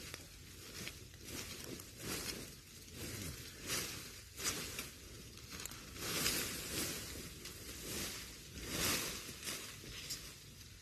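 Irregular rustling and crackling of dry leaves and twigs close to the microphone, coming in uneven surges about every half second to a second.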